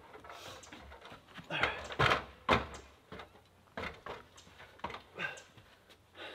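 Irregular wooden knocks and scrapes as a long log beam and a ladder are shifted against a timber post frame, the loudest pair of clunks about two seconds in.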